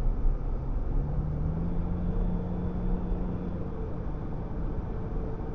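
Car driving at highway speed, heard from inside the cabin through a dash cam's built-in microphone: steady road and engine noise, with a low hum that rises slightly in pitch about a second in.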